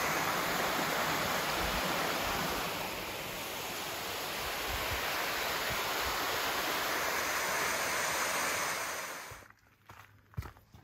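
Wildcat Falls waterfall, water rushing in a steady, even hiss. It cuts off abruptly about nine and a half seconds in, leaving a few faint low knocks.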